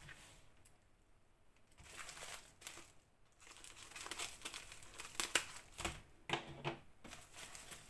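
A plastic bubble-wrap sleeve crinkling and rustling as it is handled and cut open with scissors. It is faint at first; from about two seconds in come the rustles, then a run of sharp crackles and snips.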